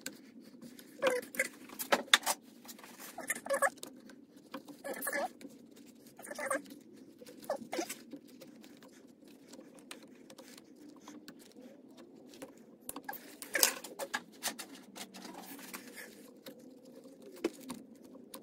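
A steel pick scraping, clicking and squeaking against the wrist-pin retaining clip inside a 1957 Harley-Davidson flathead piston as it is pried at. There are irregular small metal clicks and scratches, and a sharper click about three-quarters of the way through.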